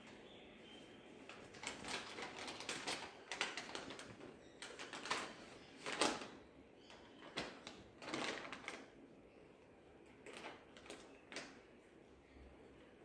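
Plastic packet of baby wipes rustling and crinkling in irregular bursts as wipes are pulled out and handled, the loudest about six seconds in.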